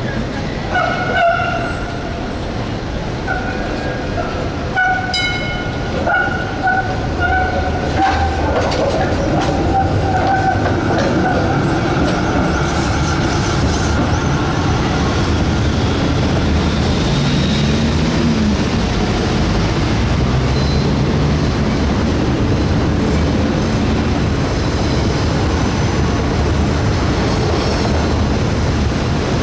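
Electric street trams on a city track. Steel wheels squeal in short repeated high tones on a curve during the first several seconds, then a steady rumble of trams running along the street track.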